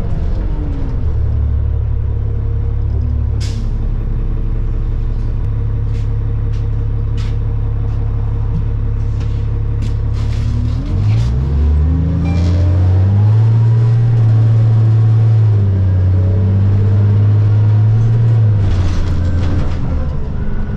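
New Flyer D40LFR diesel bus engine heard from inside the bus, running steadily at low revs with occasional clicks and rattles, then revving up about halfway through as the bus accelerates, holding a louder, higher note and easing off near the end.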